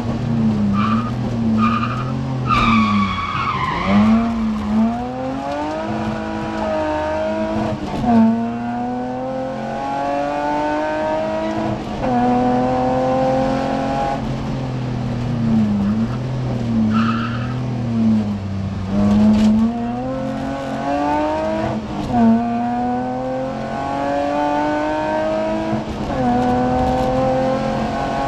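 BMW E30 rally car's engine heard from inside the cockpit at full stage pace, revving up and dropping sharply in pitch at each of several upshifts. A brief high tyre squeal falls away about three seconds in.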